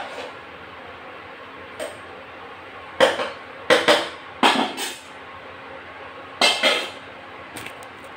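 A spoon knocking and scraping against a steel cooking pot while stirring a curry, a run of sharp clanks clustered between about three and seven seconds in, over a steady hum.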